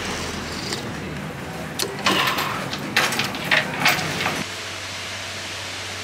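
Eatery ambience with a steady traffic hum. From about two to four seconds in come several sharp clinks and clatters of tableware: spoon, chopsticks and bowl.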